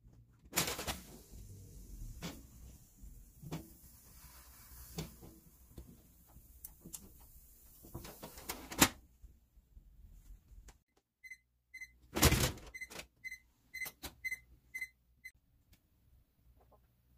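Light metallic clatter and knocks as fava bean pods are set on the wire tray of a gas stove's double-sided grill, ending in a sharp clack as the grill drawer shuts about halfway through. After that come about ten short, high electronic beeps, roughly two a second, with a heavier knock among them.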